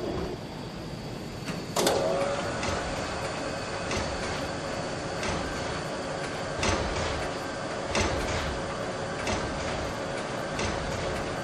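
Machinery running: a steady mechanical hum that starts with a clank about two seconds in, with scattered clicks and knocks throughout.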